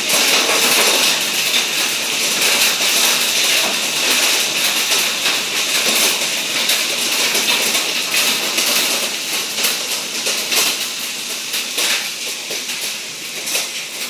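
Heavy downpour with hail: a loud, steady hiss of rain with many sharp clicks of hailstones striking.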